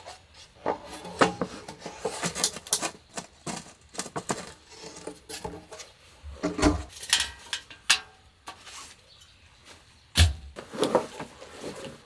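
Folding camp tables being unfolded and set up on a tent floor: scattered clicks and knocks of the legs and panels with rustling, and two heavier dull thumps, about halfway through and again about ten seconds in.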